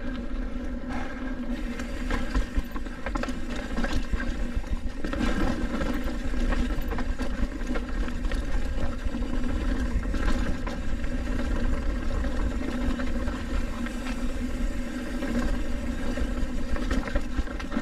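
Trek Roscoe 8 hardtail mountain bike riding down a dry, rocky dirt trail. Tyres rumble over the dirt and wind buffets the mic, under a steady whirring buzz from the bike, with short rattles and knocks as it goes over rocks.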